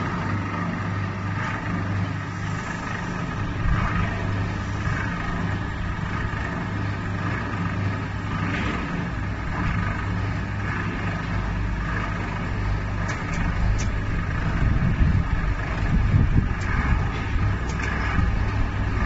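Industrial powder mixer running under its electric motor drive: a steady hum with a few light clicks, rougher and slightly louder in the second half.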